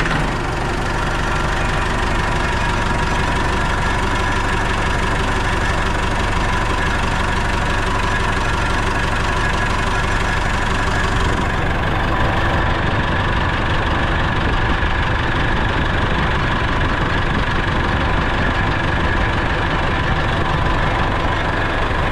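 Case CX90 tractor's Perkins four-cylinder diesel idling steadily, just started and running well after its water pump replacement.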